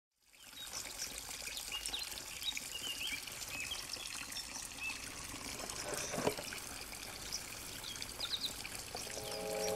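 Steady trickling water with short bird chirps scattered through it, and a single click about six seconds in.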